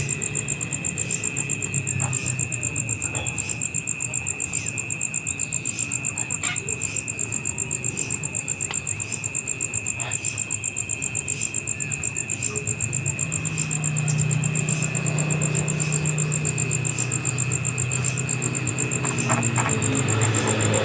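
Steady high-pitched insect trilling, a fast pulsing buzz, over a low hum that grows louder about two-thirds of the way through.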